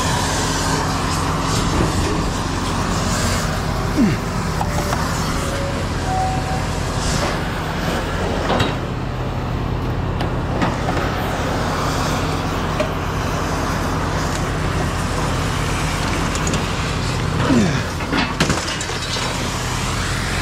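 A motor or engine running steadily, with scattered metal clanks and a couple of short falling squeaks.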